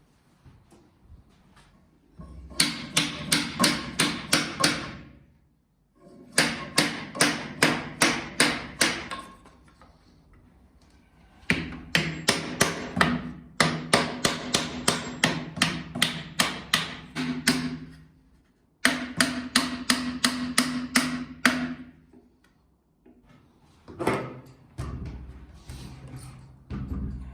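Repeated hammer blows on wood-working work, struck at about four a second in several runs of a few seconds each, with short pauses between runs.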